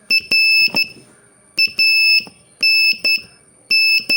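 Morse code sent as a high-pitched single-tone beep, keyed in short dits and long dahs with a click at the start and end of each element: the letters R (dit-dah-dit), A (dit-dah), N (dah-dit) and the start of K, spelling the practice word RANK.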